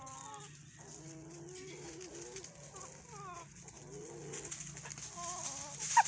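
Chickens clucking and calling in a string of short, wavering calls, ending in one sharp, loud squawk. A steady low hum runs underneath.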